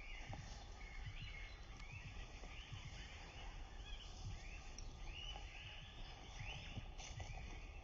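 Birds calling: a steady string of short chirps that rise and fall, over a low rumble.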